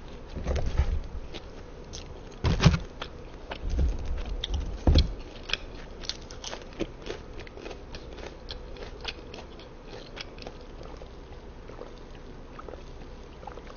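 Close-miked eating: crunchy bites and chewing, the loudest bites in the first five seconds, then quieter crackly chewing clicks.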